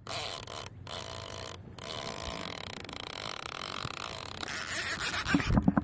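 Baitcasting reel's line-out clicker ratcheting as a fish pulls line off the spool, briefly stopping twice, then growing louder with a run of sharp clicks near the end as the reel is handled.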